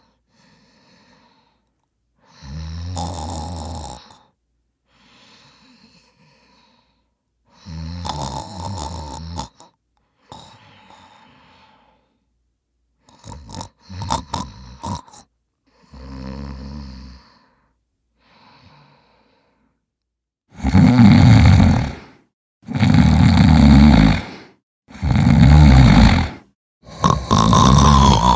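A series of snores: soft ones alternating with louder ones, a rattly, clicking stretch about halfway through, then four very loud, long snores about two seconds apart near the end.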